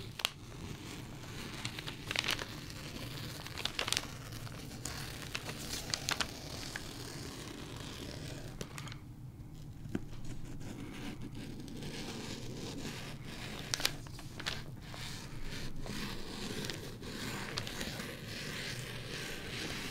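Rotary cutter rolling through crisp taffeta along a paper pattern: a crunchy scraping cut in a series of short strokes, with sharp clicks scattered through it.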